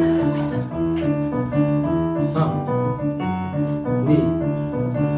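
Keyboard music: piano-like notes and chords, changing about twice a second.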